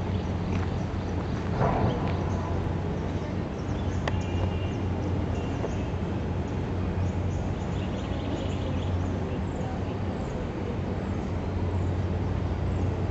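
Outdoor background noise: a steady low hum under a noisy haze, with faint short high chirps scattered throughout.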